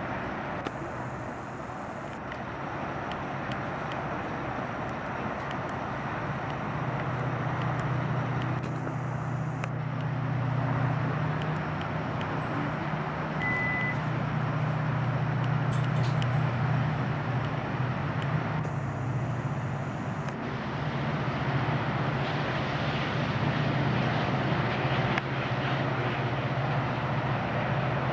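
Steady traffic noise with a low engine drone that comes in about six seconds in and holds steady to the end. A brief high beep sounds about halfway through.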